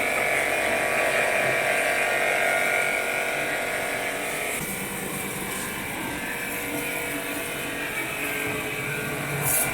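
KisanKraft KK-PWIH 2200 electric pressure washer, a 2.2 kW single-phase motor driving a high-pressure pump, running with a steady whining hum. The tone changes about four and a half seconds in.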